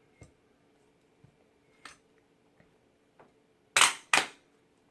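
A few light clicks and taps, then two sharp, loud clacks in quick succession near the end: the aluminum kickstand of a rugged tablet case being moved and snapped against the case.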